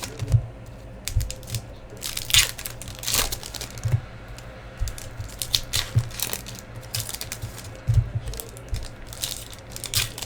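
Trading card pack wrappers crinkling and tearing open as packs are opened and the cards handled, in irregular rustles with a few soft thumps.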